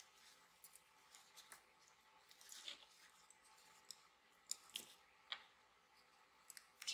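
Faint rustling of yarn and small soft clicks from hands crocheting with a hook, a few sharper clicks past the middle.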